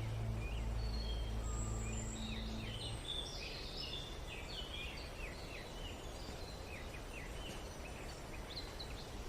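Birds chirping in many short, quick calls over a steady hiss of outdoor ambience, with a low held music drone that stops about three seconds in.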